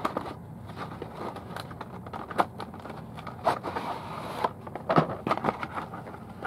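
A cardboard box and its packing being opened and handled: an irregular run of small clicks, crackles and scrapes, with a short rustle about four seconds in.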